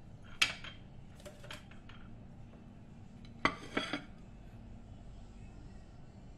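A spoon and small dishes clinking against a ceramic bowl. There is a sharp clink half a second in, a few light taps, then a loud clink and two smaller ones about three and a half seconds in.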